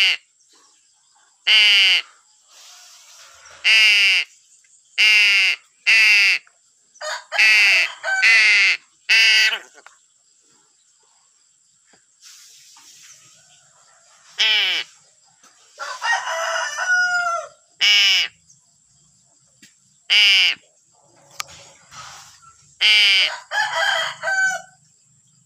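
Crow cawing in a series of short, loud, harsh calls, each falling in pitch, given singly and in quick runs of two or three. Twice a longer burst of varied, jumbled chattering calls comes between the caws.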